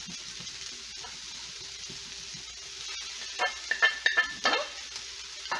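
Stir-fried rice and vegetables sizzling in a hot pan. About three and a half seconds in, a quick run of sharp, ringing clinks and scrapes as a wooden utensil scrapes sliced egg off a ceramic plate into the pan.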